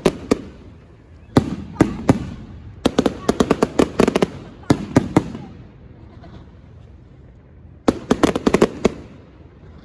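Fireworks bursting in rapid volleys of sharp crackling bangs, four clusters of cracks with short lulls between them, the longest lull about two and a half seconds long in the middle.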